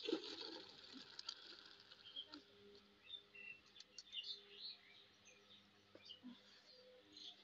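Boiled potatoes and peas with their cooking water poured from an aluminium pot into a steel colander, a brief splash in the first second or so. Then faint small birds chirping.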